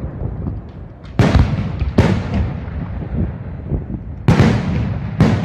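Aerial firework shells bursting in a large display: four loud bangs, the first about a second in, another a second later, and two more close together near the end, each trailing off in echo over a continuous low rumble of further explosions.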